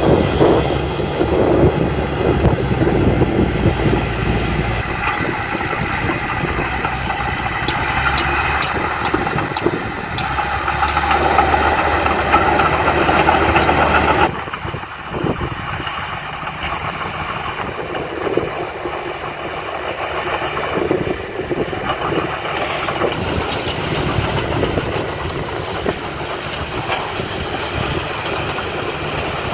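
Heavy construction machinery engines running under load, with scattered clanks and rattles. About halfway through, the louder part of the noise cuts off abruptly, leaving a steadier, lower engine sound.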